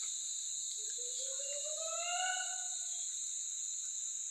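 Steady, shrill forest insect chorus droning at several high pitches. About a second in, a rising tone with overtones sounds for about two seconds over it.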